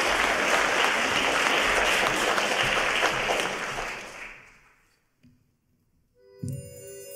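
Concert-hall audience applauding, fading away after about four seconds. About six and a half seconds in, the orchestra of Russian folk instruments begins playing with sustained ringing notes.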